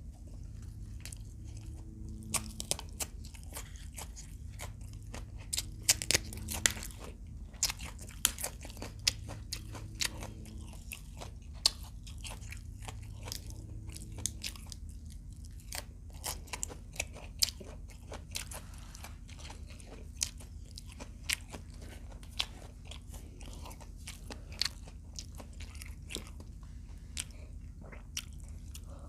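Close-miked crunching and chewing of crispy fried adobo quail, with many irregular sharp crunches, loudest and most crowded about six seconds in.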